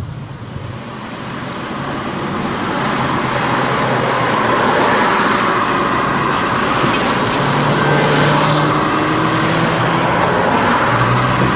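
Road traffic passing close by: car engines and tyre noise that grow louder over the first few seconds and then hold steady, with a low engine hum joining in the second half.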